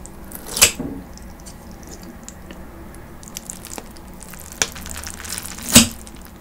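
Kitchen scissors cutting cold naengmyeon noodles in plastic bowls, with wet squishing of noodles and broth. Two loud snips, about half a second in and near the end, with lighter clicks between.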